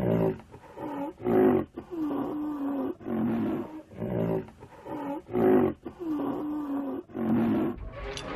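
Rhinoceros sound effect: a run of deep, pitched grunting calls, each under a second long, repeated about once a second. A rising whoosh starts just before the end.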